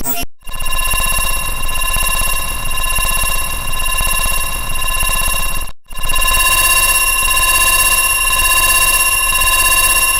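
Loud, steady electronic ringing tone, like an alarm or a telephone bell, with a fast flutter. It runs for about five and a half seconds, cuts out for a moment, and then starts again.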